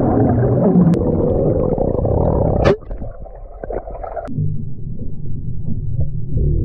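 Muffled underwater sound in a swimming pool: a low churning rumble broken by a few sharp cracks from small firecrackers thrown into the water.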